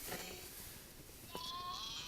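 A small child's long, high-pitched whining cry starts about a second and a half in and holds one wavering note.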